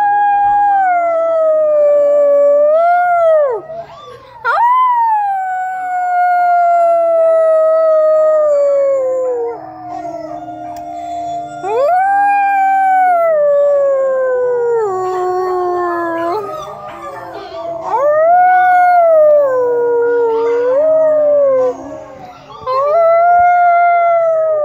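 Pit bull-type dog howling: about five long howls, each starting high and sliding down in pitch, some lifting again briefly at the end, with short gaps between them.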